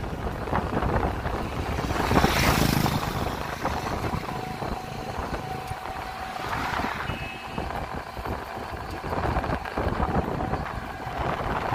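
Road and engine noise of a moving vehicle, heard from inside the cab through an open window, with wind buffeting the microphone; it swells louder a couple of times.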